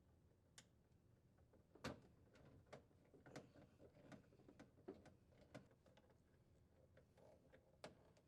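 Faint scattered clicks and taps of a nut driver and the plastic refrigerator cover panel being handled, the clearest about two seconds in.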